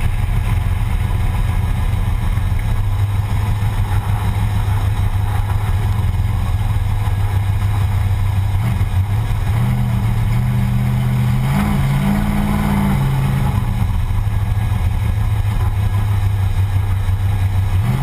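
Ford Thunderbird drag car's engine running steadily at low speed, a deep rumble that rises a little in pitch about nine seconds in and eases back down a few seconds later.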